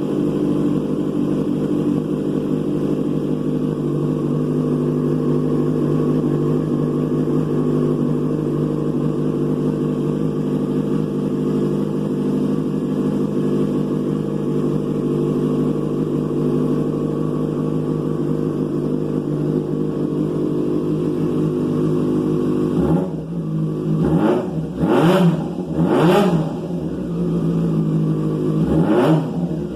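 Yamaha FZ6's inline-four engine running through an aftermarket sport exhaust. It idles steadily for most of the time, then is revved in three quick throttle blips near the end, the pitch rising and falling back each time.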